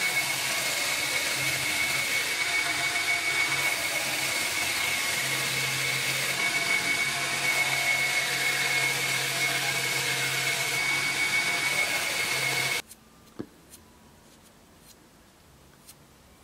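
Belt grinder running with a steady high whine over a grinding hiss as a steel blade is held against the belt. The sound cuts off abruptly about thirteen seconds in, leaving quiet with a few faint taps.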